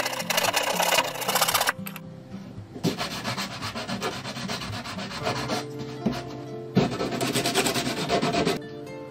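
A hand saw cuts through a wooden strip for the first second and a half or so. After a short pause, sandpaper is rubbed back and forth on the sawn end of the strip in two bouts of quick strokes, with background music playing underneath.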